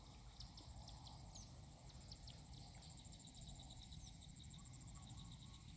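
Faint insects chirping, with short repeated high chirps and a steady high trill, over a low rumble of wind on the microphone.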